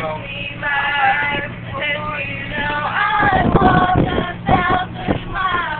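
Girls singing a song together, unaccompanied, over the steady low hum of the bus they are riding in.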